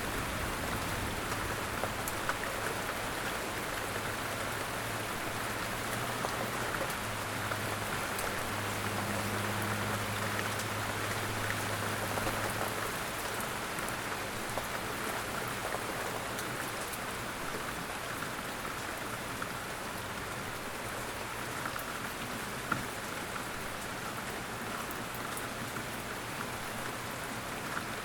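Steady rain falling on a surface, a dense, even patter of drops with scattered sharper drips.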